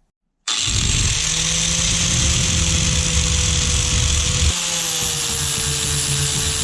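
Electric power tool starts abruptly about half a second in and runs steadily at a high, even speed, its tone shifting slightly lower about four and a half seconds in.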